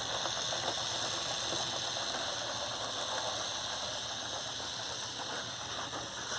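Small K'nex electric motor running steadily and driving a plastic K'nex Whip ride model through its gearbox, with a steady whine and a fine, rapid clicking of plastic gears.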